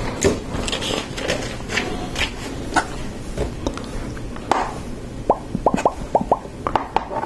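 LEGO plastic pieces being handled: scattered light clicks and clatter, with a quick run of about half a dozen sharp little clicks past the middle.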